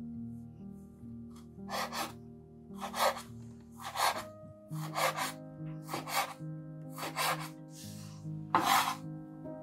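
Chef's knife finely chopping fresh dill on a bamboo cutting board, a short rasping chop about once a second, over soft background music.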